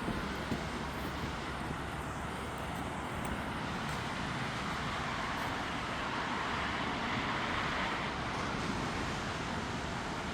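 Surf washing on a sandy beach: a steady rushing sound that swells a little about six seconds in and eases off again.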